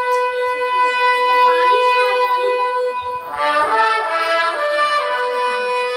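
Instrumental interlude of a devotional Urdu song: a steady held note carries on under the melody, and a fuller melodic phrase comes in about three seconds in.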